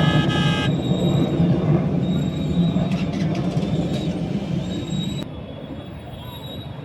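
Low engine rumble fading away over several seconds, with a brief horn toot at the start.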